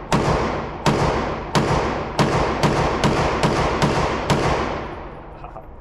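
A string of nine gunshots that speeds up from about one shot every three-quarters of a second to about two a second, each followed by the long echo of an indoor range. The last shot comes a little over four seconds in.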